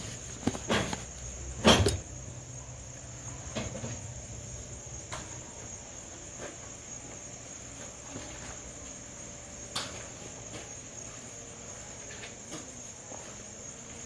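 Crickets chirring steadily with one high-pitched tone, with a few sharp knocks over it, the loudest about two seconds in.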